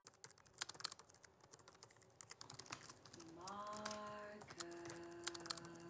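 Rapid, irregular keystrokes on a laptop keyboard. About halfway in a low held tone joins, sliding up briefly, then settling on a second steady note.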